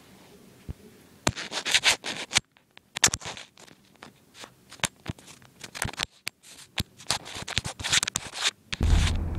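Camera handling noise: fingers scratching and rubbing over the camera and its microphone in quick, irregular strokes with sharp clicks. Near the end a loud low rumble sets in.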